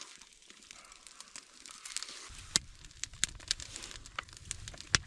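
Close-up eating sounds: food being handled and chewed, faint crinkling and crackling with scattered sharp clicks. A low rumble joins about two seconds in.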